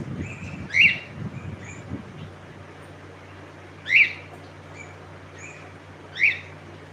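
Cockatiel giving three short, loud calls, each a quick rise and fall in pitch, with fainter chirps in between. A low rumble in the first two seconds gives way to a steady low hum.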